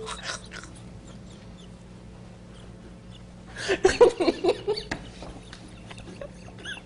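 A news anchor laughing uncontrollably. Quiet, held-in stretches give way to a loud burst of high-pitched laughter about halfway through, with fainter laughs near the start and near the end.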